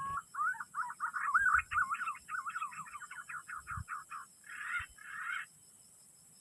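Green pigeon (punai) calling: a rising whistle, then a quick run of warbling, up-and-down whistled notes, ending in two harsher notes.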